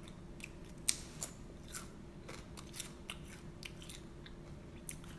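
Nacho cheese Doritos being crunched while eaten: irregular, sharp crunches a few times a second, over a faint steady hum.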